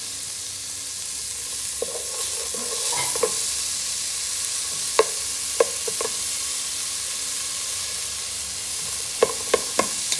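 Diced carrot, celery, onion and garlic sizzling steadily in a metal soup pot while being stirred with a plastic spoon, which knocks and scrapes against the pot a few times, several in quick succession near the end.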